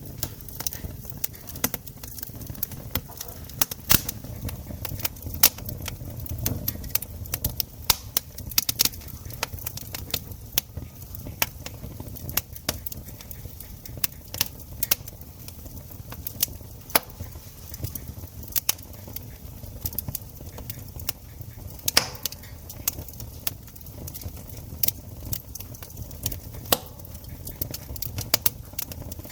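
Campfire crackling: burning wood gives off irregular sharp snaps and pops, a few much louder than the rest, over a low steady rumble.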